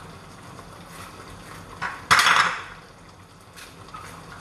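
A knife clinking against a plate while a tomato is cut up by hand: one short, sharp clatter about two seconds in, with a few light taps around it.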